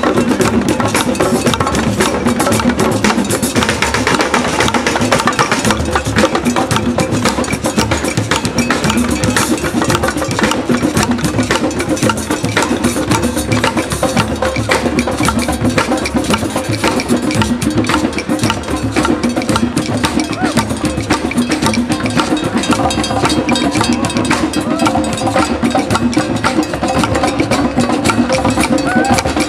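A drum circle: many hand drums beaten together in a dense, steady rhythm of sharp strikes.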